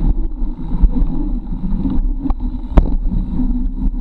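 A mountain bike rolling fast over an asphalt pumptrack, heard through a handlebar-mounted camera: a steady low rumble of the tyres and the frame, with a couple of sharp knocks, the loudest nearly three seconds in.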